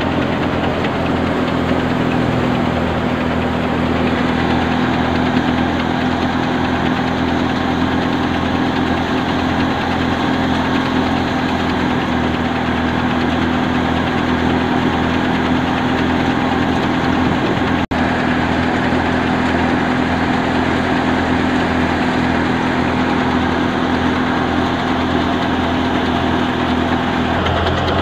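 Wheat thresher threshing mustard crop, running steadily: a loud mechanical drone with a steady hum, with a momentary break about two-thirds of the way through.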